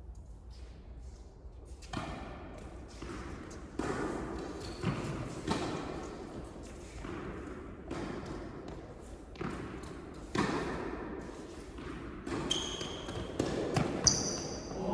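Tennis balls struck by rackets and bouncing on an indoor court during a rally: a series of sharp hits and bounces, roughly one a second, with a few short high squeaks near the end.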